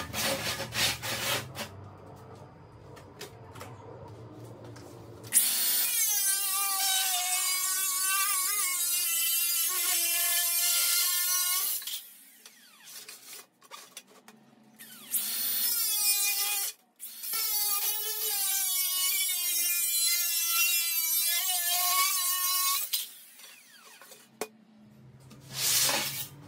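Galvanized sheet steel dragged across a steel welding table, screeching with a wavering pitch in two long stretches. Short metal clatter from handling the sheet comes at the start and near the end.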